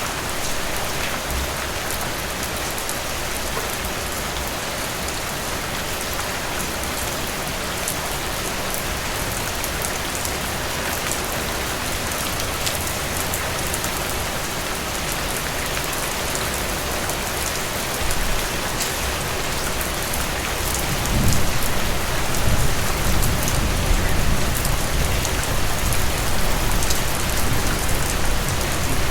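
Steady, dense rain falling on a surface. About two-thirds of the way through a deeper low rumble comes in under the rain and it grows slightly louder.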